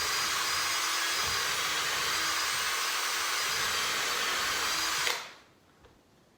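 Electric drill running steadily as it bores straight through a wooden cleat and batten, with a faint high whine, then stopping abruptly about five seconds in.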